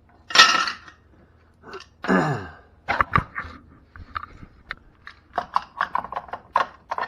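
A sharp breathy exhale, then a short falling grunt, followed by a quick run of small clicks and taps of metal parts being handled and fitted.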